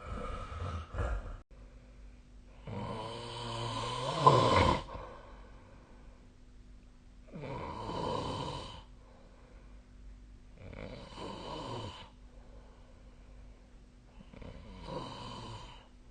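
A sleeping person snoring: four long snores, one about every four seconds. The first is the loudest and the later ones are fainter, and a shorter noisy breath comes right at the start.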